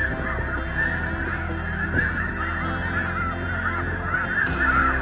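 A dense chorus of snow goose calls: many high, overlapping honks with no break.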